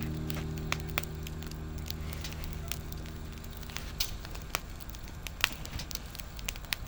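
Wood fire crackling, with irregular sharp pops. A held musical note fades out under it during the first half.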